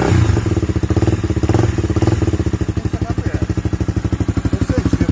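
Honda XRE 300's single-cylinder four-stroke engine running through an aftermarket sport exhaust, freshly started. Revs sit slightly higher for the first couple of seconds, then it settles to an even, pulsing idle.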